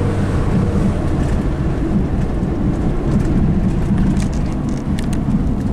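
Car driving along a road, its engine and road noise heard from inside the cabin as a steady, mostly low rumble.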